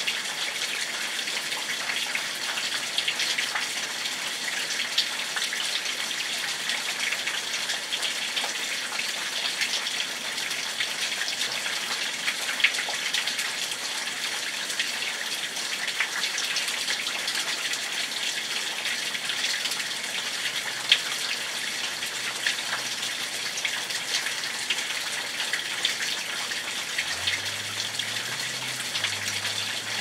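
Steady rainfall: an even hiss of rain with many small drop ticks and an occasional louder drip.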